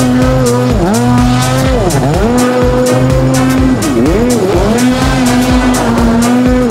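Loud music with a steady beat and held tones that repeatedly swoop down in pitch and back up.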